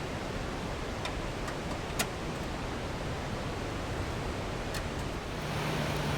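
Steady rush of a mountain stream with a few light clicks. Near the end a low steady hum comes in over it.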